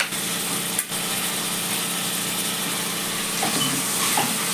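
Food frying in hot oil in a pan, a steady sizzle, with a few short scrapes of a stirring spoon near the end.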